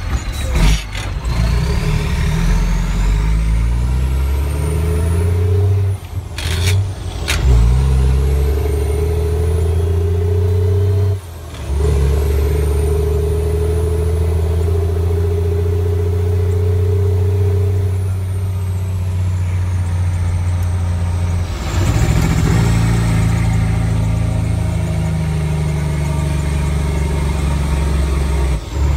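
Mack DM truck's diesel engine pulling through the gears, heard from inside the cab: the engine note climbs in each gear and drops at each gear change, with brief breaks in power about six, eleven and twenty-one seconds in. A few sharp clunks come near the start and around seven seconds, and a faint high whine rises and falls over the engine.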